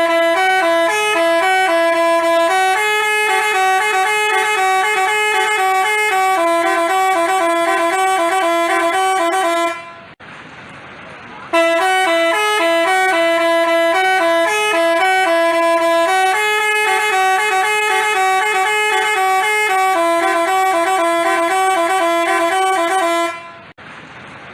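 Telolet Basuri musical bus horn playing a stepping multi-note tune, in two long phrases with a short break between them.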